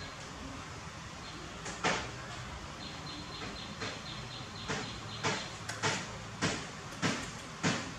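A hand patting a sleeping baby monkey's back: one soft tap about two seconds in, then regular taps a little under two a second through the second half, over a steady low hum.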